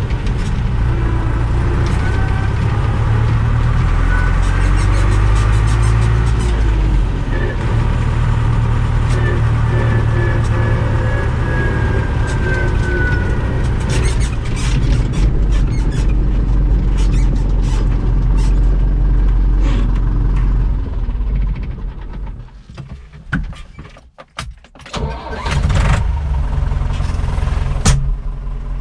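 A Deutz-Fahr DX 3.60 tractor's air-cooled four-cylinder diesel runs steadily, with a whine that glides up and down in pitch. In the second half, clicks and rattles come through the running engine. About three-quarters of the way through, the engine sound drops low for a couple of seconds, then picks up again.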